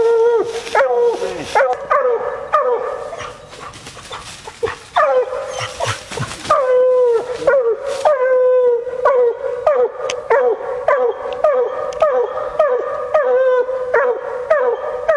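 Bluetick coonhound barking treed: a long run of short barks, each dropping in pitch, easing off about three seconds in and coming back at about two barks a second. The tree bark is the hound's signal that the raccoon is up the tree.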